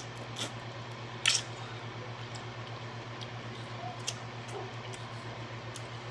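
Close-up eating sounds from a seafood boil: scattered wet, squishy mouth clicks and smacks, the sharpest about a second in, over a steady low electrical hum.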